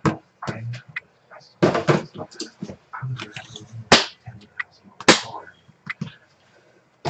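Hands handling and opening a small cardboard trading-card box: a run of scrapes, taps and sliding rustles of cardboard, the loudest at about two, four and five seconds in.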